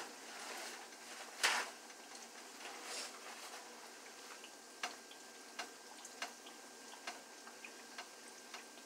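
Beignet dough frying in a skillet of hot oil: a faint sizzle with small, irregular pops and crackles. One louder brief noise about a second and a half in.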